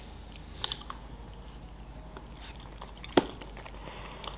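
Quiet chewing of a mouthful of cake, with faint mouth clicks, and one sharp click a little past three seconds in as a metal fork is set down on the serving plate.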